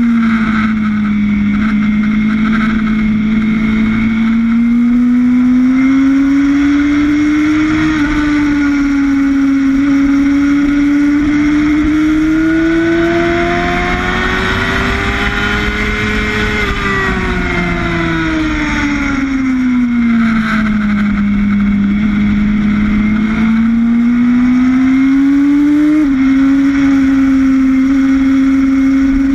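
Sportbike engine at race pace, heard onboard: its note climbs under throttle, dips at an upshift about a quarter of the way in and again near the end, and falls away smoothly in the middle as the bike slows for a corner. Steady wind rush underneath.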